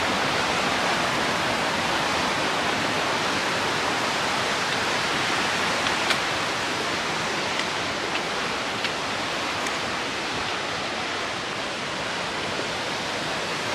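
Fast mountain stream rushing over rocks: a steady, even rush of water, with a few faint clicks in the middle.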